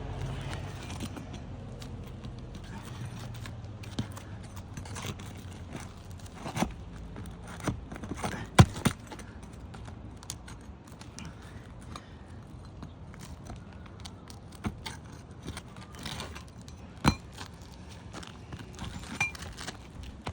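Asphalt roof shingles being pried up and torn off by hand with tools: irregular sharp cracks, clicks and scrapes, the loudest about a third of the way in. The old shingles are brittle and tear apart as they come off.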